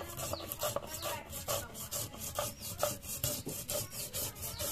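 Stone roller (nora) rubbed back and forth over a flat grinding stone (shil), grinding cumin seeds into a wet paste: an even grating rasp of several quick strokes a second.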